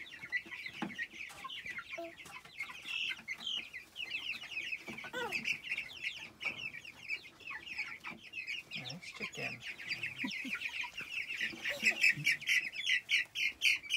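A flock of young chicks peeping continuously, many short, high, downward peeps overlapping. The peeping grows busier and louder in the last few seconds.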